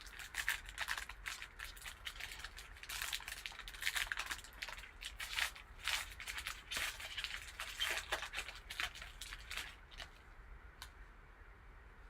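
Plastic wrapping on a sealed trading-card box and its packs being torn and crinkled open by hand: a quick run of rustles and rips that thins out near the end.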